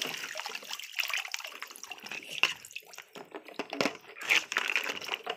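Water dripping and lightly splashing, with irregular small clicks and knocks of a wet plastic toy truck being handled and turned over at the edge of a water-filled tub.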